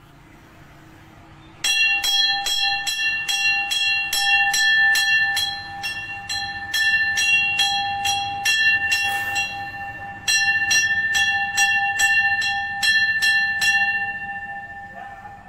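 Temple bell struck rapidly and repeatedly, about three strikes a second, over a clear sustained ringing tone. The ringing starts about two seconds in, breaks off briefly near the middle, resumes, and the strikes stop shortly before the end, leaving the tone to die away.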